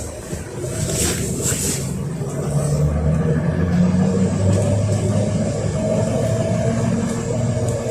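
ZiU-682G trolleybus's DK-213 traction motor humming as the trolleybus gathers speed, heard from inside the passenger cabin. Its level builds over the first few seconds, with a short hiss about a second in.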